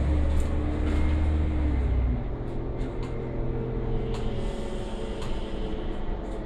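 Irisbus Citelis city bus's natural-gas (CNG) engine running under way, heard from inside the passenger cabin with road noise. A deep engine drone falls away about two seconds in, leaving a lower hum. A few light clicks and rattles come through.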